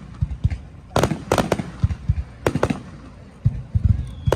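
Aerial fireworks shells bursting in a rapid, uneven series of about ten sharp bangs with low rumbling tails, several coming in quick pairs.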